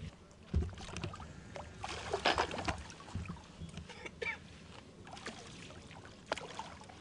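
Water splashing and sloshing as a hooked carp swirls and rolls at the surface beside the landing net, in irregular splashes with the loudest cluster about two seconds in.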